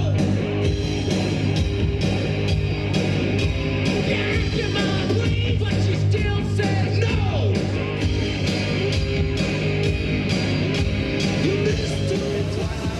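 Rock music with a steady drum beat, bass and a singing voice.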